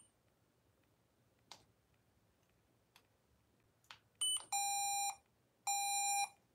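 Kodak instant print camera: two soft clicks of the shutter button, then a short high beep and two long, lower electronic beeps about a second apart. The beeps are an error warning, which the owner puts down to a dead battery.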